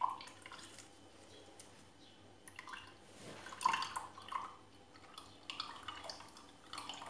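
Onion juice dripping from a squeezed cloth bag of grated onion into a glass: faint, scattered drips.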